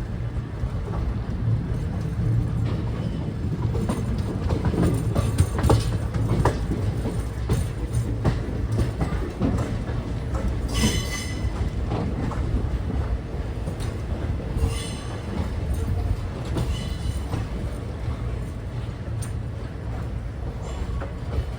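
Train moving along the tracks: a steady low rumble with rapid clatter of wheels over the rails. A high-pitched wheel squeal lasts about a second halfway through, and shorter, fainter squeals follow a few seconds later.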